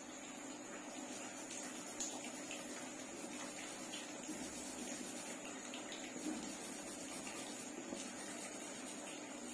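Steady background hiss with a faint hum, over which a graphite pencil makes faint, short scratching strokes on paper as grass is hatched in.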